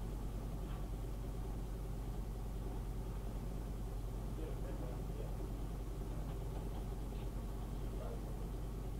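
A steady low hum with faint, indistinct background sounds, on an old, low-quality field recording.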